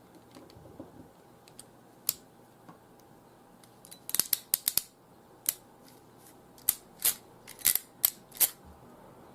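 Crimping tool clicking as its handles are squeezed on an RJ45 plug: a series of sharp clicks, a quick cluster about four seconds in, then single clicks at uneven gaps.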